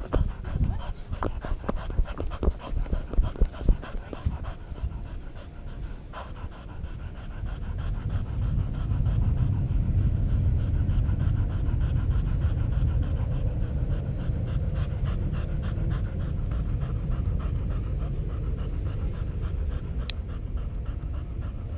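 Dog panting fast and hard right at the microphone, getting louder and steadier about a third of the way in. Before that, irregular knocks and bumps from the dog moving about.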